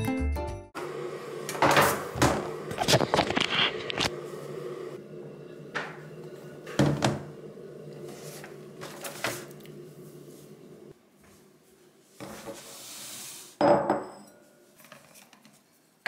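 Household handling sounds: a series of knocks and clatters as things are picked up and set down on a table and cupboards or drawers are opened and closed, over a steady low hum that stops about eleven seconds in.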